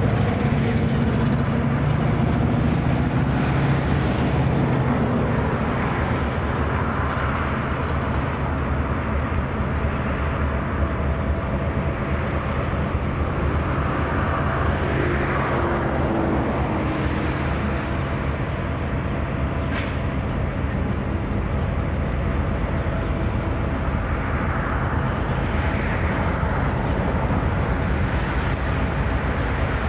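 Diesel-electric locomotives idling, a steady low rumble with an even hum. A single brief sharp click about twenty seconds in.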